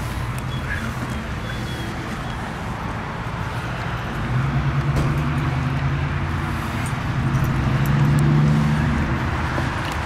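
Motor vehicle traffic noise: a low engine hum over a steady rush, swelling louder about four seconds in and again near the end.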